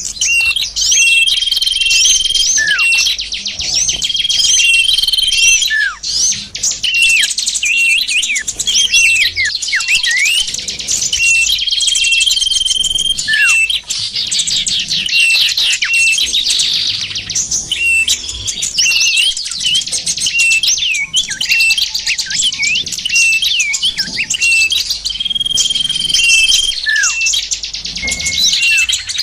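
Dense, loud chatter of many small birds, rapid high chirps and trills with a short held whistle that comes back about every twelve seconds, as a looped recording does. It is a bird-trapping lure call (suara pikat) meant to draw small birds in.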